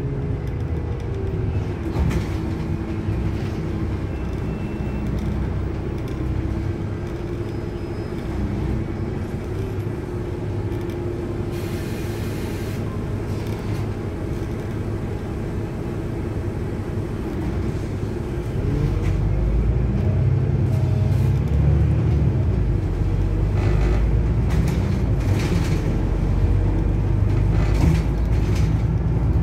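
Autosan M10LF city bus's engine and drivetrain running as the bus drives, heard from inside the cabin, with a whine that rises and falls in pitch. It gets louder about two-thirds of the way through.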